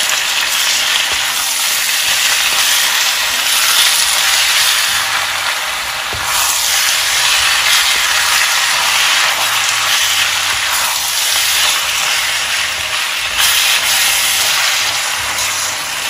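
Minced mutton frying in oil with onion and garlic-ginger, a steady sizzle, while a wooden spatula stirs and turns it in the pan.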